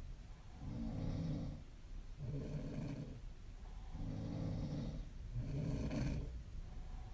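A young woman snoring: four low, buzzing snores in a steady breathing rhythm, each about a second long and about one and a half seconds apart.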